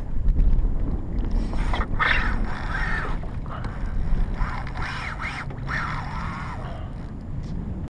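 Wind buffeting the camera microphone at sea, a steady low rumble that is strongest in the first second. From about a second in, a string of short, choppy higher-pitched sounds runs over it.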